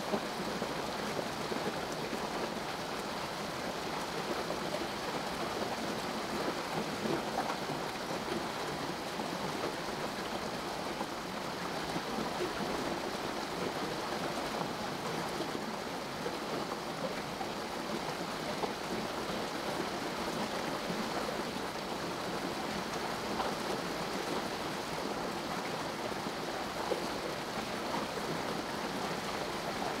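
Small mountain waterfall splashing steadily down the rocks: a constant rushing of water.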